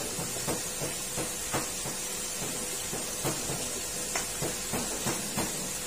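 Crab pieces deep-frying in a wok of hot oil: a steady sizzling hiss with frequent irregular pops and crackles.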